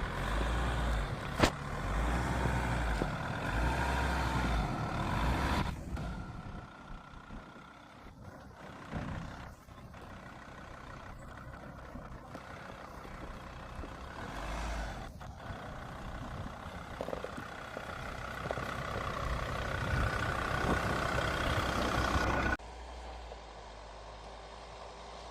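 Jeep Grand Cherokee WJ's 2.7 CRD five-cylinder diesel running as the vehicle drives over rough ground, a low rumble mixed with body and suspension noise. There is a sharp knock about a second and a half in. Near the end the sound drops suddenly to a quieter level.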